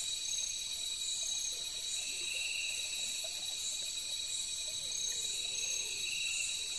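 Night-time chorus of forest insects: several steady, high-pitched trills layered together, with shorter high calls swelling and fading over the top.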